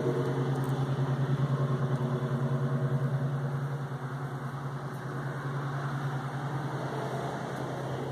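Steady low machine hum with a fast pulsing flutter, easing off a little about four seconds in.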